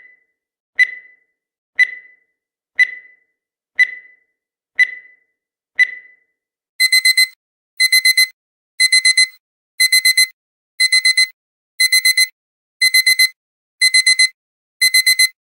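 Countdown timer sound effect: a short beep once a second for about six seconds, then, as the timer reaches zero, a digital alarm-clock beep of four quick beeps repeated once a second.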